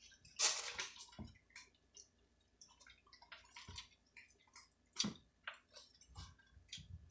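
Faint close-up eating sounds: small wet mouth clicks and smacks while chewing, with two short, louder noises, one about half a second in and one about five seconds in.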